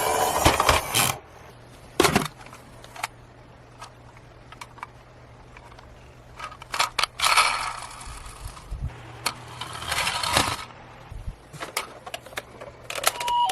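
Toy cars being handled and sliding: scattered clicks, knocks and rattles, with two longer scraping, rattling runs. Near the end a toy's two-tone siren starts.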